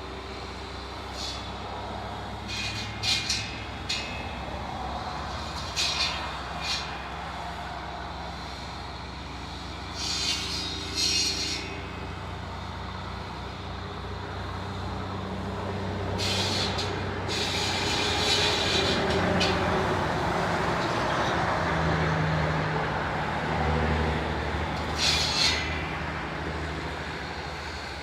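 Heavy diesel vehicle engine running steadily, with short hissing bursts now and then and the engine noise growing louder in the second half.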